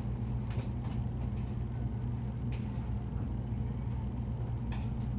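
Steady low hum with a few faint clicks and rattles.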